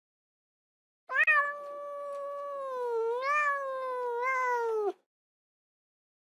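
A cat giving one long, drawn-out meow of nearly four seconds, starting about a second in, its pitch dipping and rising again midway, then cut off abruptly.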